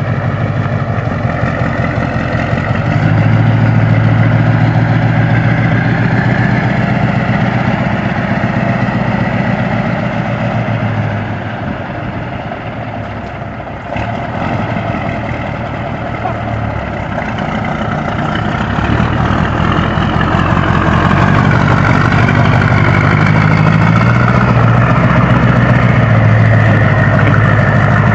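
Scania 142's V8 diesel engine running through a straight-through exhaust, with a deep, steady note. It rises a few seconds in, falls back toward idle around the middle, and rises again in the second half.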